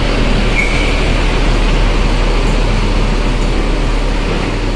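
Steady diesel engine rumble of an intercity coach driving onto a ferry's vehicle deck.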